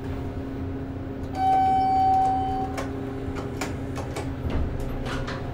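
Steady low hum of a moving elevator cabin. Shortly after the start a single held electronic tone sounds for about a second and a half, and a few light clicks and knocks follow.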